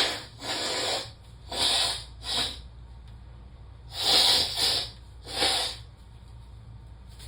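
A woman sniffing and snorting hard through her nose: about seven short, noisy breaths in small clusters. Her nose is irritated by snorted Chhinkni sneezing powder.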